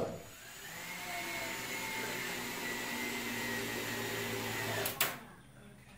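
Cordless drill driving a screw through a plastic mirror hanger into a wall stud: a steady motor whine that rises as it gets up to speed, then stops with a sharp little crack about five seconds in, which is plausibly the plastic hanger cracking under the screw.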